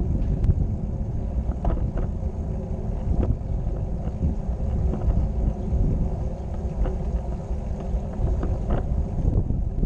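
Wind buffeting the microphone of a moving camera, a steady low rumble, with a few faint clicks.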